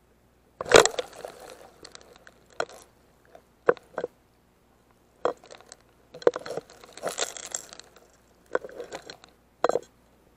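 Irregular bursts of crackling and clicking as surging water washes over and around a camera in a waterproof housing at the waterline of a rocky shore pool, with near silence between the surges.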